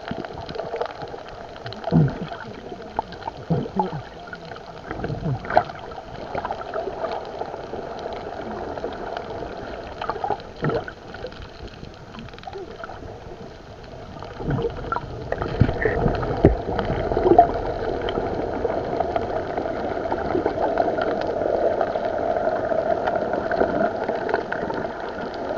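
Underwater sound picked up by a camera in its waterproof housing: a muffled, steady water rush with bubbling gurgles and scattered knocks, getting louder about halfway through.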